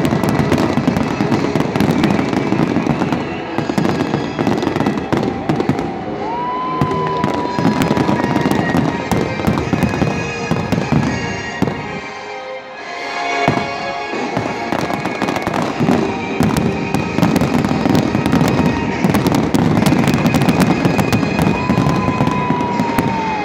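Aerial fireworks bursting in quick succession: a dense run of booms and crackling that thins out briefly about halfway through, then builds again. Two short whistling tones rise over the bursts.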